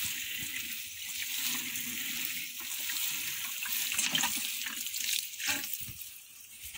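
Water showering from the rose of a plastic watering can onto a bed of coriander, a steady hiss that fades near the end.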